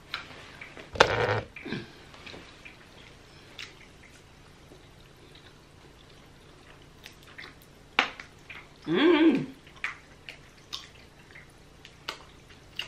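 Plastic food packaging being handled: small clicks and taps of a lidded sauce cup and the nacho tray, with a loud crackle about a second in. Near nine seconds a short sound rises and falls in pitch, the loudest thing heard.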